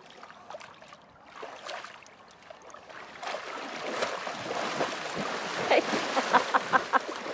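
A horse wading through shallow lake water, its legs splashing. The splashing grows louder from about three seconds in as the horse strides faster through the water, with a quick run of short sharp sounds near the end.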